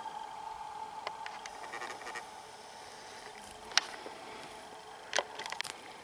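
Footsteps through forest undergrowth, with small crackles of twigs and dry litter and two sharp twig snaps, about four seconds in and again a second or so later. A faint steady whine fades out about a second in.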